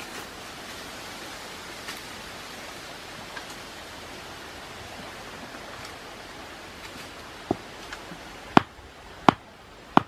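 Four sharp knocks in the last few seconds: a stone striking the top of a bamboo stake to drive it into the ground. Under them, a steady rushing hiss.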